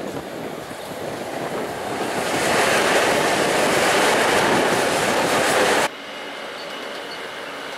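Long Island Rail Road M7 electric train passing close by, its wheel and air rush building to a loud steady rush. About six seconds in it drops suddenly to a quieter, more distant train sound.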